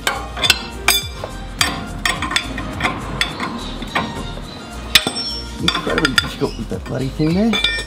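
Irregular metallic clicks and clinks of a wrench working on the drag link adjuster of a Toyota LandCruiser 79 series, as the drag link length is adjusted to centre the steering wheel.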